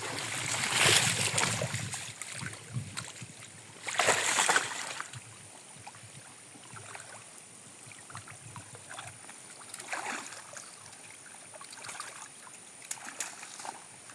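Water splashing and sloshing around a person wading in a lagoon: two louder splashes, about a second in and about four seconds in, then fainter splashes.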